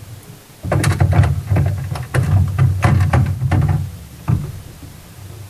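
Glass bottles on a shelf being handled: a quick run of knocks and clatters for about three seconds, then one more knock.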